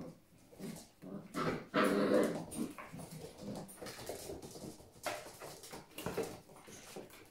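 Collie puppies play-fighting, vocalising in short, irregular bursts, the loudest about two seconds in.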